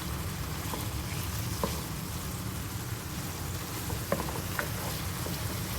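Onion, garlic and tomato sizzling steadily in butter in a pan, cooked down soft, with a few light clicks of a utensil against the pan.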